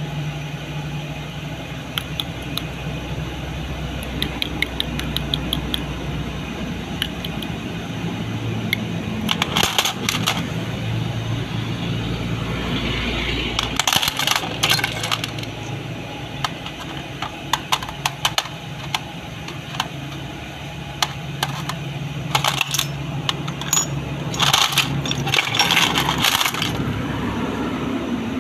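Small steel parts of a dismantled Lucas CAV diesel fuel injection pump clinking and rattling against each other and the aluminium basin as they are picked through and handled. The clinks come in clusters, over a steady low hum.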